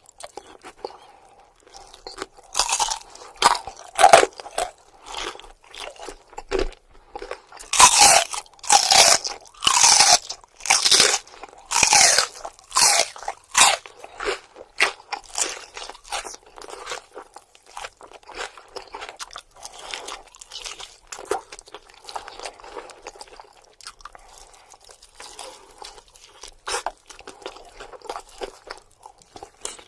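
Close-miked bites into crispy fried buffalo chicken wings. Loud crunches come a few seconds in and again through the middle, then give way to quieter chewing.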